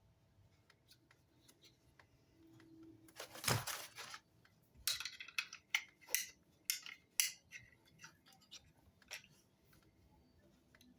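Metal clicks and clanks from a clamp and hand tools being worked on a small-engine recoil starter. A short scrape comes about three and a half seconds in, then a string of sharp clicks and clanks.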